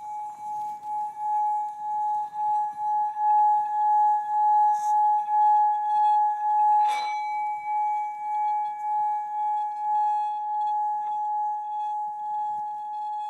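Singing bowls rubbed around their rims with wooden mallets, giving a sustained ringing tone that swells and fades in a steady pulse. About seven seconds in a bowl is struck, and a brighter, higher ring joins the drone.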